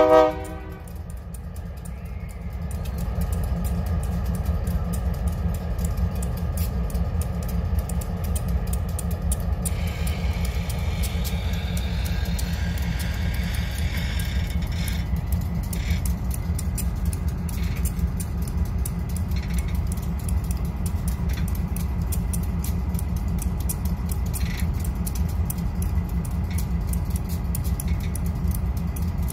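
Great Lakes Central diesel locomotives switching freight cars: a steady low rumble of engines and rolling cars. It opens with a short, loud pitched tone, and a higher ringing sound comes in from about ten to fifteen seconds in.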